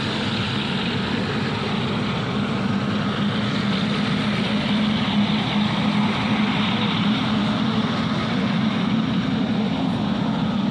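Boeing 777 jet engines running at low taxi power as the airliner rolls past: a steady low hum with a broad jet hiss over it, swelling slightly midway.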